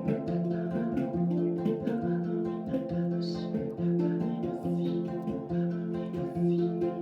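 Tonkori, the Ainu plucked string instrument, playing a repeating figure of low plucked notes that comes round about once a second.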